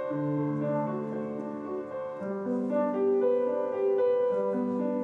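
Solo piano playing a slow melody over held low bass notes.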